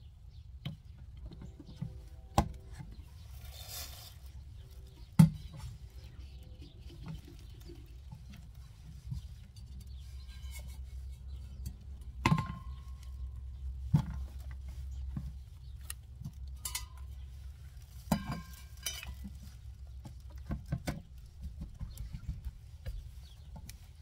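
Handling noises: scattered knocks and clicks of hard plastic parts and the soft rub of a microfiber cloth as a portable water-bottle pump and its plastic tube are wiped and set down on a plastic tub lid. The sharpest knocks come about 5, 12, 14 and 18 seconds in.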